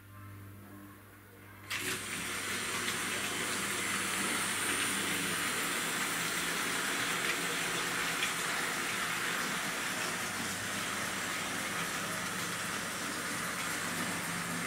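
Model trains on a three-track layout starting up and running: a low hum comes in first, then about two seconds in the steady whirring rush of the locomotive motors and wheels on the rails begins and carries on evenly.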